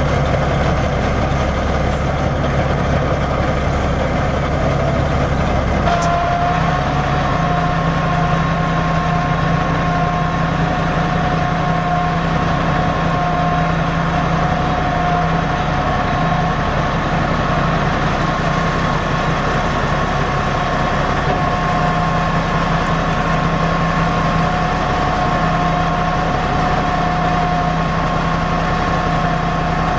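Cummins NTC 14-litre turbo-diesel in a dump truck running steadily. About six seconds in there is a click, the note changes, and a steady two-tone whine joins as the PTO-driven hydraulic pump raises the steel dump bed on its single-ram hoist.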